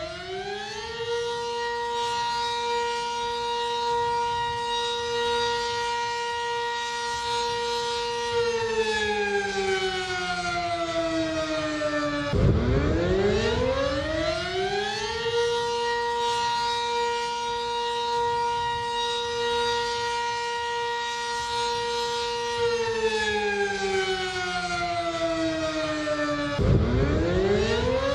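Civil defense siren sounding in long cycles. Its pitch climbs within about a second, holds steady for about seven seconds, then slowly falls for about four seconds. It breaks off and starts climbing again about halfway through, and once more near the end.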